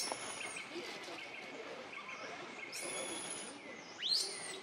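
Forest birds calling: thin, very high whistled notes, then a louder call that sweeps sharply upward about four seconds in, over a steady high-pitched hum.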